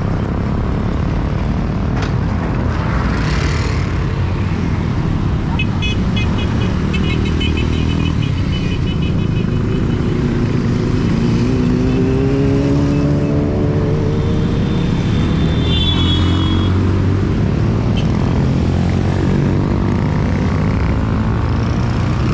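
A large group of motorcycles riding past, their engines running together in a steady rumble. About halfway through, one engine's pitch rises as it accelerates, and a run of short high-pitched beeps sounds about a quarter of the way in.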